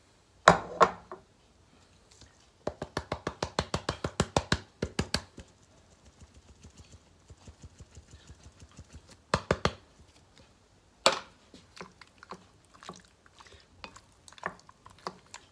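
Canister of grated cheese shaken over a glass bowl of pasta: a couple of sharp knocks, then a quick even run of taps, about six a second, for about two and a half seconds, followed by a few more knocks and light tapping.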